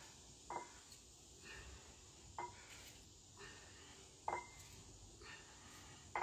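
Faint metal clinks from a pair of hex dumbbells, each a sharp knock with a short ring, about every two seconds in time with bent-over rows, with softer sounds between them.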